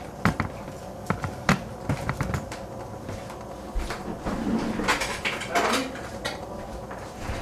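Several short, sharp clicks and knocks in the first two and a half seconds, then quieter scattered taps and rustling: kitchen items being handled around a pot on the stove.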